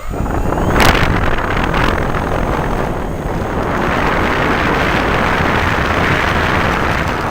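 Model airplane motor and propeller starting abruptly and then running steadily at high power, with propeller blast buffeting the microphone; a brief sharper burst comes about a second in.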